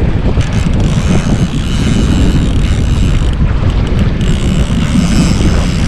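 Steady wind buffeting the microphone aboard a boat on open water, a loud, even low rumble.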